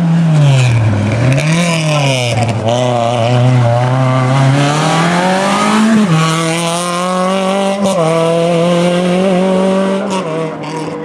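Rally car engine revving hard as the car accelerates out of a hairpin and passes close by. The pitch dips and rises in the first couple of seconds, climbs steadily, then drops sharply about six seconds in as the car goes past, and holds fairly steady after that.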